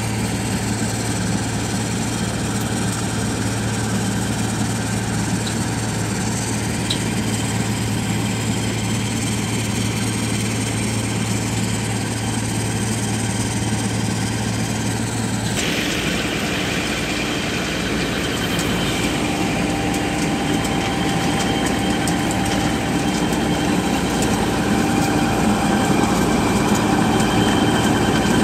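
XCMG cold milling machine running as it mills the asphalt road surface: a steady, loud mix of diesel engine and cutting drum. About halfway through the sound changes abruptly, with steady whining tones coming in and growing a little louder toward the end.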